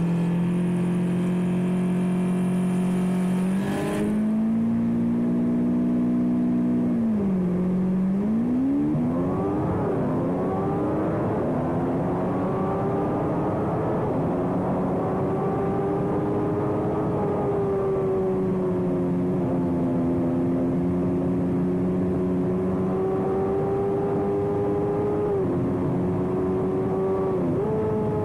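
Engine of a 350 Superbike-class race motorcycle, heard onboard. It holds a steady note, with a click about four seconds in, dips near eight seconds, then revs up sharply and runs hard at high revs with a few brief dips in pitch.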